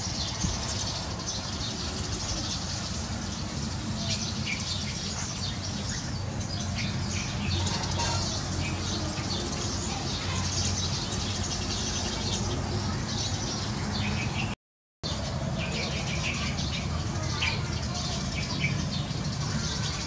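Eurasian tree sparrows gathering to roost, chirping many short overlapping chirps, over a steady low rumble. The sound cuts out for a moment about fifteen seconds in.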